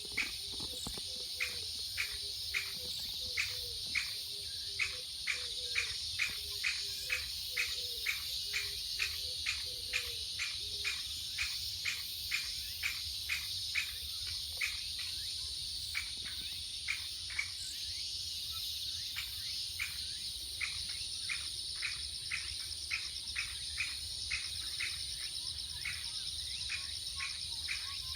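Late-summer chorus of crickets and bell crickets, a steady high trill, with a sharp short call repeating about two to three times a second from the woods, of unknown source. For the first ten seconds or so, a low cooing runs underneath.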